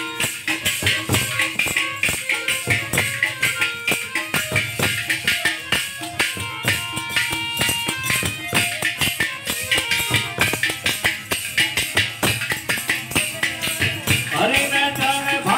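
Devotional folk music: a fast, even rhythm of hand percussion with metallic jingling cymbals, with short steady melodic notes over it. A singing voice comes in near the end.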